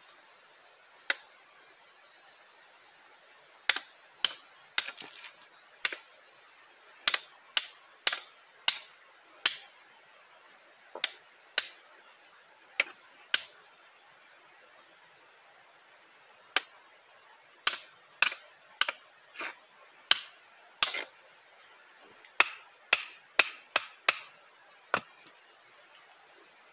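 Machete chopping a small green wooden pole: a string of sharp, irregular blows, some coming in quick runs of two or three. A steady high-pitched background drone fades out about halfway through.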